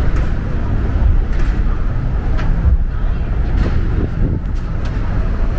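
Steady city street traffic rumble, with wind buffeting the microphone.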